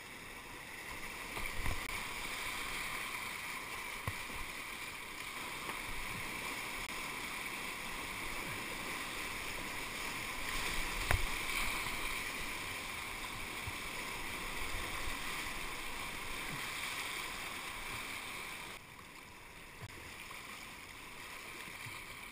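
Rushing whitewater of a river rapid heard from a kayak in the current, with a few sharp knocks or splashes from the paddle and hull. The rush drops noticeably near the end as the kayak reaches calmer water.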